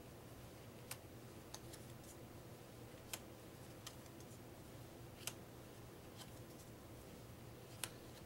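Game cards being laid one at a time onto a stack on a wooden tabletop: a handful of short, sharp, faint snaps a second or two apart over a steady low hum.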